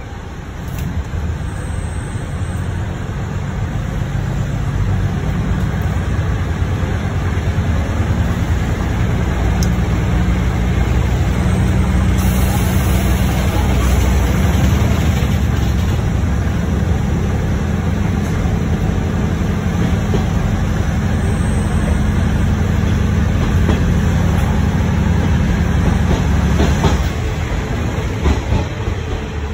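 Ex-JNR KiHa 30 diesel railcar heard from inside the car, its diesel engine running under power with the wheels rolling on the rails. The sound grows louder over the first few seconds and then holds steady, and about 27 seconds in the engine note drops back as the power is eased off.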